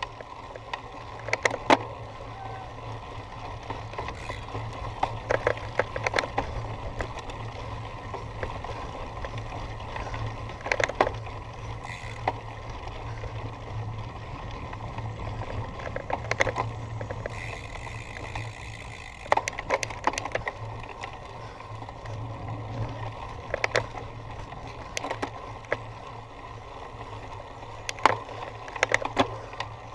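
Cyclocross bike rattling over rough ground: clusters of sharp knocks and clicks every few seconds over a steady low rumble.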